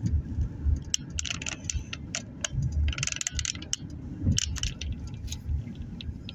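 Car cabin noise while driving slowly: a steady low road-and-engine rumble with many quick light rattles and clicks from loose items shaking inside the car.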